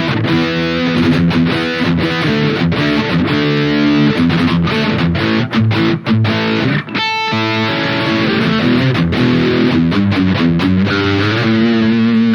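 Harley Benton ST80 FR HH electric guitar played through a high-gain distorted tone: fast riffing in short, choppy notes, with one longer ringing high note about halfway through.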